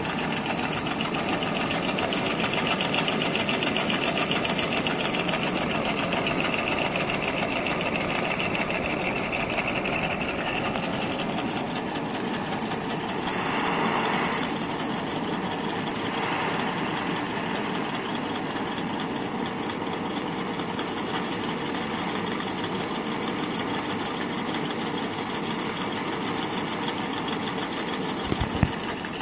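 Homemade miniature double-acting piston steam engine running fast on steam, a rapid, steady mechanical clatter from the piston and flywheel, over the steady hiss of the gas torch heating its boiler. A short knock sounds near the end.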